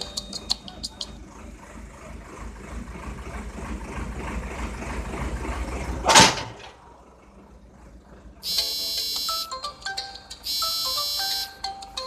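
A bell-like, ringtone-style melody plays, giving way for several seconds to a rising rumble of noise and one loud, brief burst about six seconds in; after a quiet stretch the melody comes back in short bright phrases.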